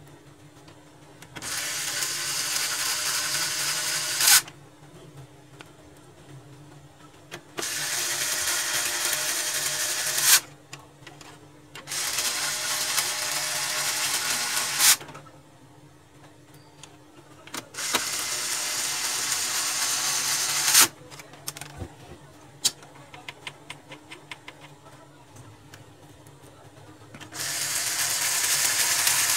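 Electric screwdriver driving screws into a laser printer's gear assembly: four runs of about three seconds each, every one ending in a sharp snap, and a fifth starting near the end, with light clicks from handling in between.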